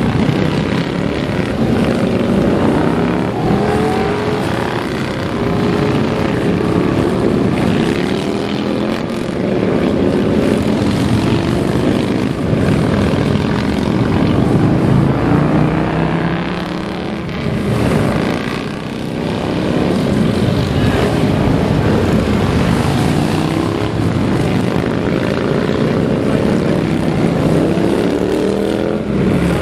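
A procession of large cruiser and chopper motorcycles riding past one after another, their engines rumbling in a continuous overlapping drone, with pitches climbing as riders pull away. The noise eases briefly about two-thirds of the way through, then builds again.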